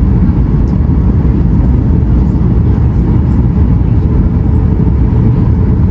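Steady low rumble of cabin noise inside a Boeing 737 MAX 8 airliner, the engines and the aircraft's own noise running evenly.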